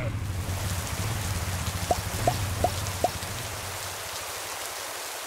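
Sound-effect rain: a steady hiss with a low rumble beneath. About two seconds in come four quick blips, each dropping in pitch.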